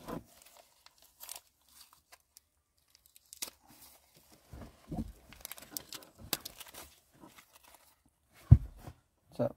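Rustling, crinkling and tearing of plastic caution tape as a taped bundle of found items is pulled open by hand, with scattered small clicks and one sharp thump about eight and a half seconds in.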